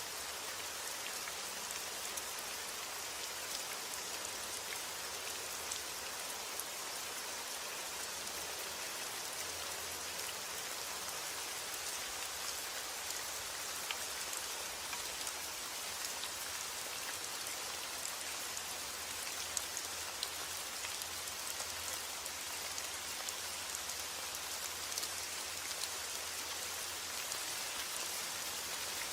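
Steady rain falling, an even hiss with scattered drops ticking on a surface.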